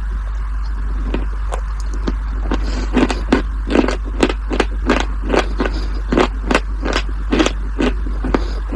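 Crunchy food being bitten and chewed: crisp crunches, a few faint ones at first, then loud and regular at about two to three a second from about three seconds in, over a steady low hum.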